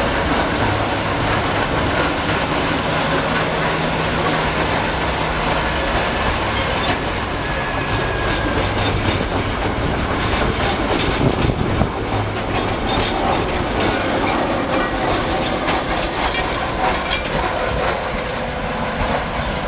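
Whitcomb 65-ton diesel-electric locomotive running steadily. From about seven seconds in, short clicks and rattles of wheels over the rail joints join the engine drone.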